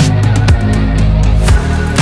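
Background music with a heavy bass and a steady beat about twice a second.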